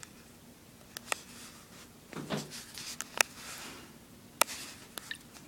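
Handling noise: a scattering of sharp clicks and small knocks, about six in all, with a short soft rustle in the middle.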